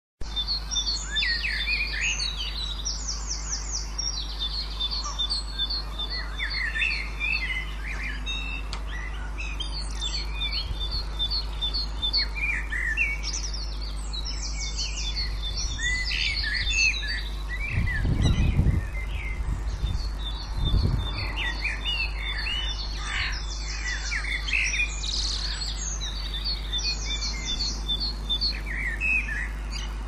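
Dawn chorus of British garden birds: several birds singing at once, with rapid trills and repeated high notes, over a steady low hum. Two brief low rumbles stand out about two-thirds of the way through.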